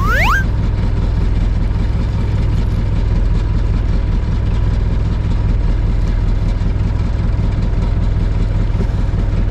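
Fishing boat's engine idling with a steady low drone. Right at the start, a short rising whistle-like glide, an edited sound effect.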